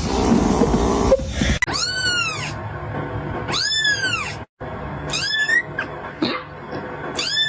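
A kitten meowing repeatedly in high, thin calls, each rising and then falling in pitch, about four of them plus a short chirp. They follow a stretch of loud rustling noise that ends about a second and a half in.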